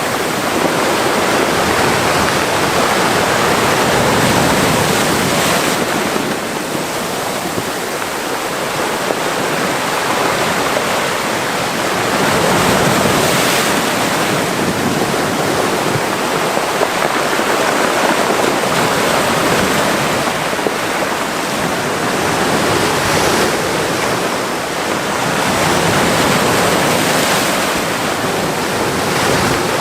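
Mediterranean sea waves washing into a small rocky cove, a continuous rushing wash that swells and eases every few seconds.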